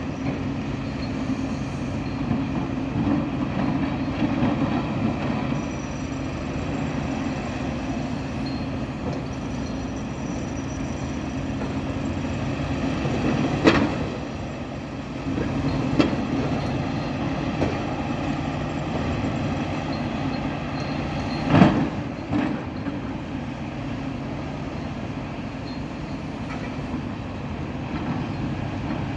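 Heavy diesel demolition machinery, excavators, running steadily with a low even engine hum. A few sharp metallic clanks come through, the loudest about two-thirds of the way in.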